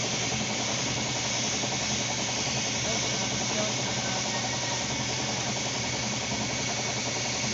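Gravity-feed paint spray gun hissing steadily as it sprays paint, over the steady hum of the air compressor running and feeding it.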